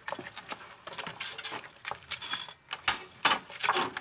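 Irregular knocks and clatter of objects being handled, with a louder cluster of knocks near the end.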